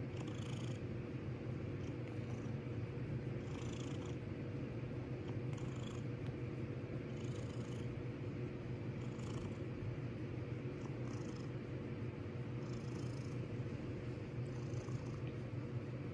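Domestic cat purring steadily while being stroked, a low continuous rumble with a soft hiss recurring about every two seconds.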